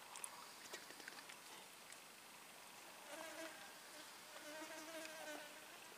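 A flying insect's wings buzzing twice: briefly about halfway through and again for about a second near the end, against near silence.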